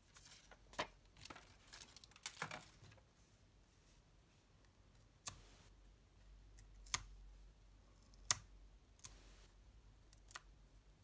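Paper and card rustling as craft pieces are shuffled on a work mat, then a few sharp, separate clicks and taps as a small hand tool works on a card-stock cut-out.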